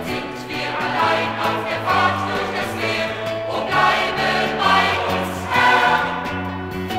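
Church choir singing a German congregational hymn in unison with a band accompanying, bass notes moving steadily under the voices.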